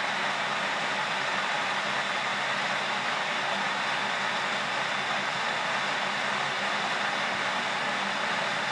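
Glass electric kettle heating water toward the boil: a steady hiss of bubbles forming at the heated base and collapsing in the cooler water above.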